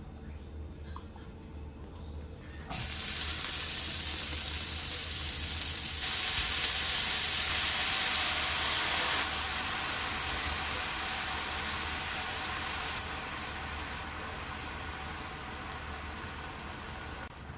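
Steady hissing noise that starts suddenly about three seconds in, then drops in loudness in abrupt steps a few times.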